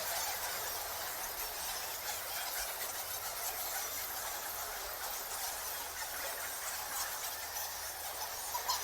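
Bats squeaking: a dense, steady chatter of many short, high-pitched squeaks overlapping one another.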